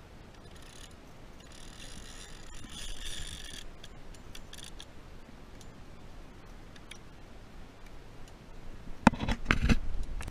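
Penn spinning reel clicking rapidly for a few seconds while the tarpon is played on the line. Near the end comes a cluster of loud knocks.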